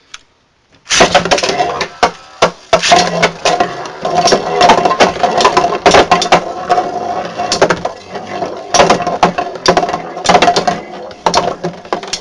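Galaxy Pegasus and Ultimate Gravity Destroyer Beyblade tops launched into a plastic stadium about a second in, then whirring around the bowl with rapid sharp clacks and scrapes as they collide again and again.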